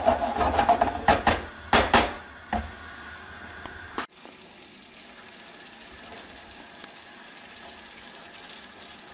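Silicone spatula stirring and scraping a thick tomato and pepper sauce in a nonstick frying pan, with a knock about two and a half seconds in. Then a steady faint sizzle of the sauce frying in oil.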